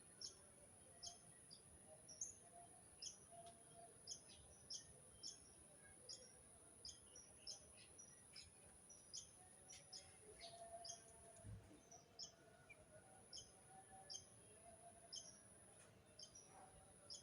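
Faint, short bird chirps repeating about twice a second, over a steady faint high hiss.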